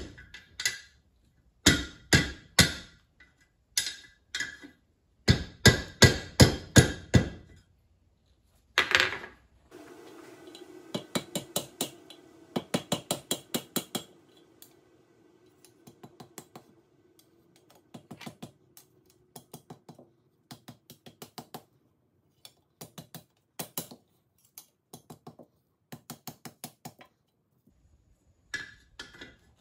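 Hand hammer striking a hot steel bar over the anvil horn to bend it into a loop. The blows come in quick runs of four or five with the anvil ringing, and the second half is a long run of lighter, quieter taps.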